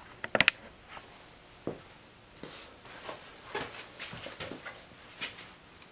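A quick cluster of sharp clicks about half a second in, then scattered light taps and knocks in a small room.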